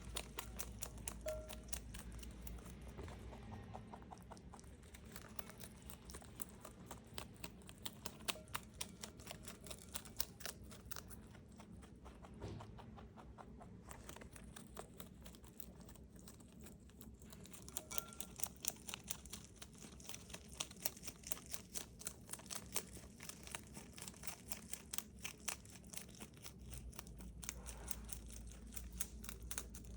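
A rabbit chewing crisp bok choy: a rapid run of small crunching clicks from its teeth working through the fresh leaves and stalks.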